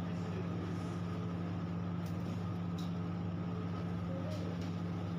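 Steady low hum with a faint, thin whine above it, unchanging throughout; a couple of faint ticks about two and three seconds in.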